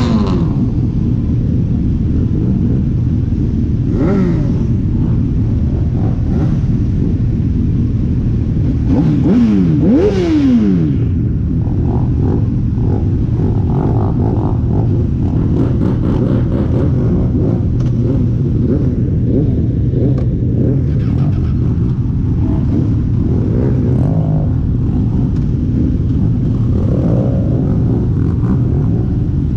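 A pack of motorcycles idling and moving off together, a steady engine rumble throughout. Several bikes rev up and back down near the start, about four seconds in, and twice about nine to ten seconds in.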